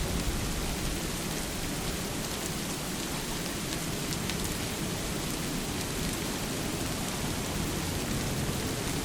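Steady rain falling on water, an even hiss with scattered faint drop ticks.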